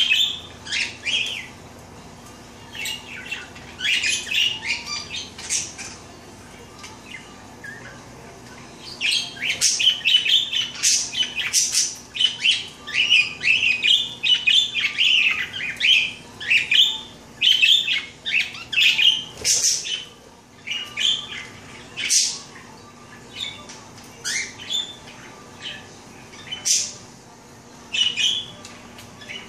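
A budgerigar bathing in a small plastic bird bath, splashing the water with its wings in repeated short flurries, mixed with budgie chirps and chatter.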